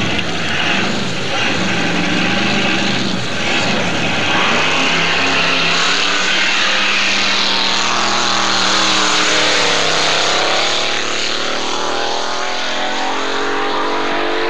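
Alcohol-fuelled, supercharged 496 cubic inch Arias Hemi V8 of a drag-racing snowmobile running hard on a drag run. The engine note dips in pitch about ten seconds in, then climbs again.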